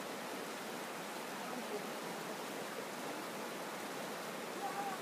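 Shallow rocky hill river running over stones and small rapids: a steady rush of flowing water.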